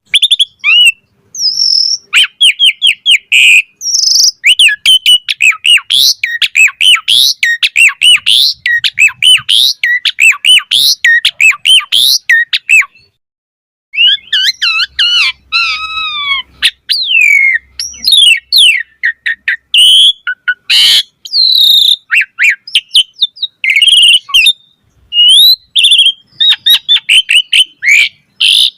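Pied starling (jalak suren) singing a fast, varied song of whistles, chirps and squeaky trills, with a short pause about halfway through.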